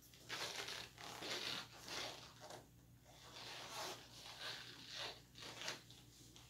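Rustling and scuffing of clothing as a person moves and adjusts an outfit, in several short, irregular bursts over a faint steady hum.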